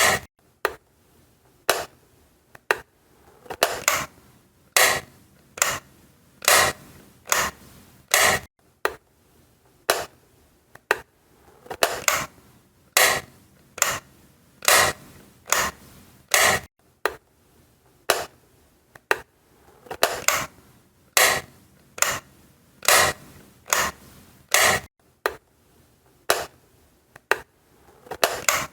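Wall light switch being flicked repeatedly: a sharp click roughly once a second, some coming in close pairs.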